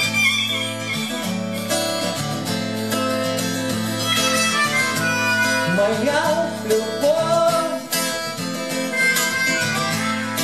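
Harmonica solo over strummed acoustic guitar, with the harmonica sliding between notes in the second half.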